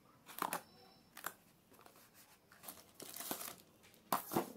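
A cardboard parcel being opened: a knife slitting the packing tape and the flaps pulled apart, making several short tearing and crinkling sounds, the loudest a little after four seconds in.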